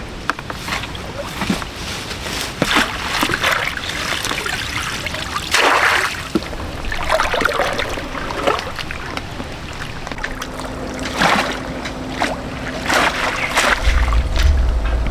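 Water splashing and sloshing in irregular surges, with a low rumble coming in near the end.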